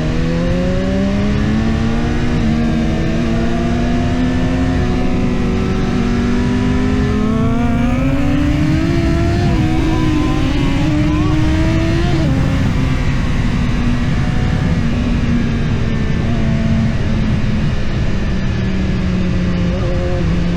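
BMW S1000RR inline-four engine under way: its pitch climbs in the first couple of seconds and climbs again from about seven seconds as the bike accelerates. It falls away sharply at about twelve seconds as the throttle closes, then holds a steady, lower cruising note.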